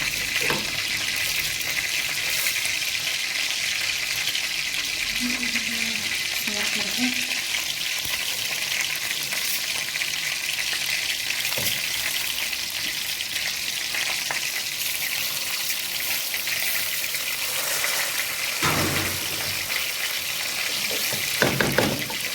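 Rice frying in hot oil in a pot, a steady sizzle, being toasted in the oil before the broth goes in. It is stirred, with a few knocks of the spoon against the pot, mostly near the end.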